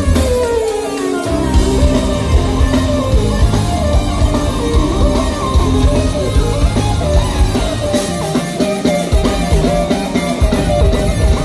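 Progressive rock band playing live, heard from the audience: drum kit, electric guitar and bass, with a falling pitch glide in the first second or so. The low end drops out briefly about a second in and again near the end.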